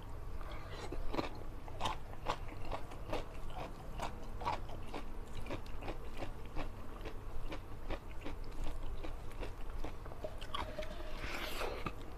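A person chewing close to the microphone, biting into and crunching a raw cucumber slice dipped in sambal, with many small sharp crunches and mouth clicks a few times a second. A louder crunch comes near the end.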